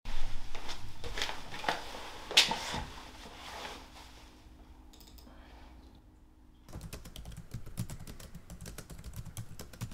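Typing on a computer keyboard: scattered key clicks at first, a quieter pause, then fast continuous typing from about seven seconds in.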